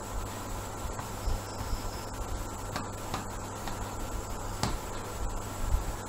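Microphone room tone: a steady low electrical hum and hiss with a faint high whine, broken by a few faint clicks.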